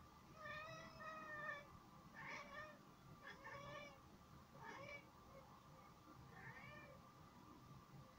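A domestic cat giving five short chirping meows that bend in pitch, the first the longest. It is calling at a pigeon it is watching and cannot reach.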